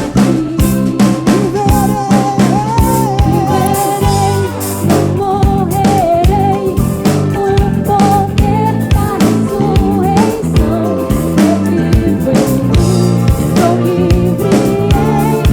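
Soul band playing live: drums, bass and guitar under a singing voice carrying a wavering melody.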